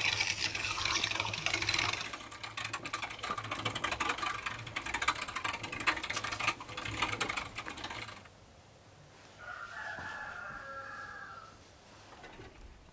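Hand-cranked metal meat grinder mincing meat and onion: a rapid, dense clicking and crunching from the turning crank and cutter, which stops about eight seconds in. Then a rooster crows once, for about two seconds.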